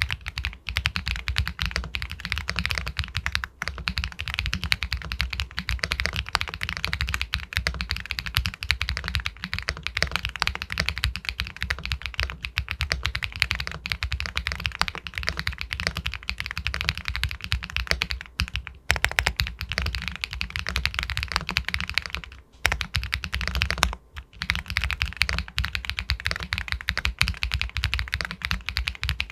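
Continuous fast typing on an Epomaker Galaxy 80 Pro aluminium mechanical keyboard with White Jade linear switches: a dense stream of keystrokes, broken by two short pauses about three-quarters of the way through.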